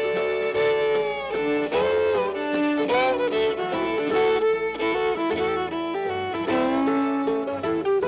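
Fiddle playing a bowed melody in an instrumental break of an old-time Americana song, with long held and sliding notes over plucked-string accompaniment.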